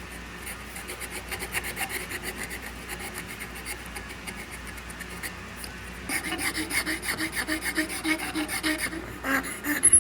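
Quick back-and-forth strokes of an abrasive worked by hand over a small piece of wood. The strokes are faint at first, then become louder and more even about six seconds in, at roughly four strokes a second.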